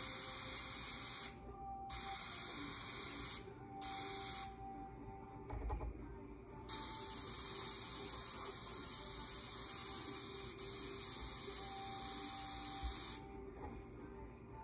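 Airbrush spraying paint, a high hiss that comes in bursts: three short spurts of about one to one and a half seconds each, then one long spray of about six seconds with a brief break in the middle.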